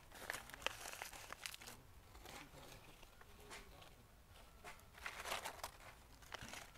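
Fresh leaves rustling and tearing as they are picked by hand, a run of irregular crinkly rustles and small snaps, with a louder burst about five seconds in.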